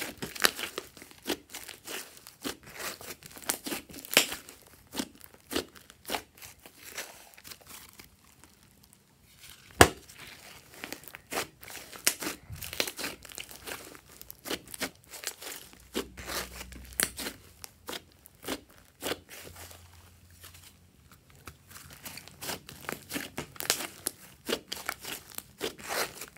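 Hands kneading and pressing a big lump of soft pink slime, giving an irregular run of sticky pops and crackles. A quieter spell comes a little before the middle, broken by one loud pop.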